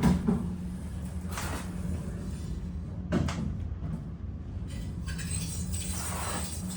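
Older, modernized Otis passenger elevator in operation, heard from inside the car: a steady low hum, a brief clunk about a second and a half in and another about three seconds in, and the car doors sliding near the end.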